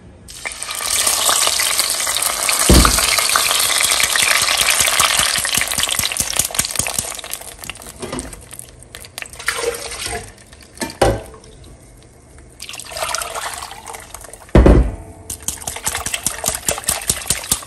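Blended tomato and guajillo chile sauce poured through a metal mesh strainer into a glazed clay pot: a steady splashing pour for the first six seconds or so that slowly tapers, then on-and-off stirring and scraping of the sauce through the sieve. A couple of sharp knocks, about three seconds in and again near the end.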